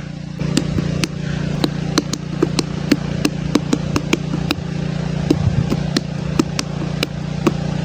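Hands drumming on a whole watermelon: hollow knocks, about three a second, in a loose rhythm, over a steady low hum.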